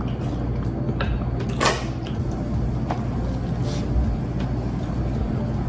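Close-miked eating sounds: wet, sticky squelches and clicks of food being dipped in sauce and chewed, the loudest about one and a half seconds in, over a steady low hum.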